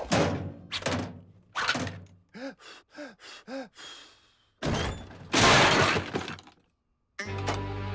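Cartoon slapstick sound effects: three sharp hits, then four short tones that each rise and fall, then a loud crash about five seconds in. Music starts near the end.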